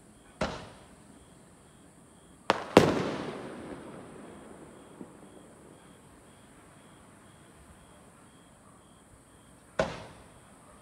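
Aerial fireworks bursting in separate bangs. There is one under a second in, then two close together about two and a half seconds in, the loudest, trailing off in a long fading rumble, and another near the end.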